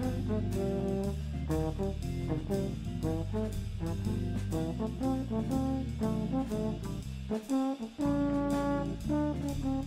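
Background music: a jazzy tune with brass over a steady beat of about two a second, the bass dropping out briefly near the end.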